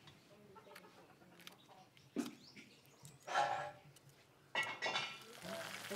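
Short snatches of people's voices, with a sharp knock about two seconds in.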